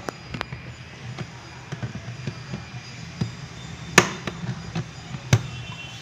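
Steel pliers clicking against a wire spring hose clamp as it is gripped and pressed down onto a dishwasher's rubber hose. It comes as a string of sharp metallic clicks, the loudest about four seconds in and another a little after five seconds.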